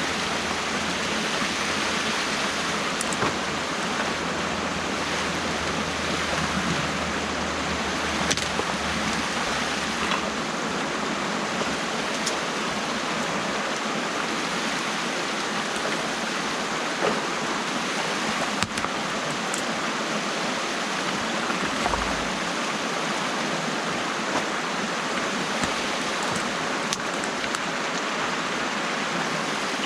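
Water rushing steadily through an opening in a beaver dam, with a few faint clicks and knocks.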